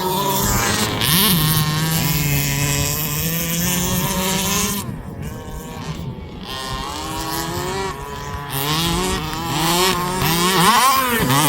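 Two-stroke petrol engine of a large-scale RC car, revving up and down as it is driven, with a brief drop in level about five seconds in.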